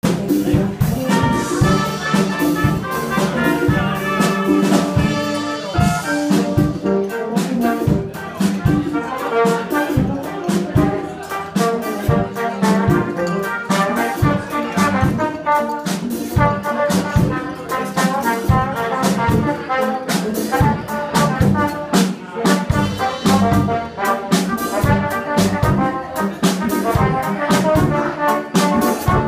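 Live brass band playing a tune: trumpets, trombones and a sousaphone, with drums keeping a steady beat.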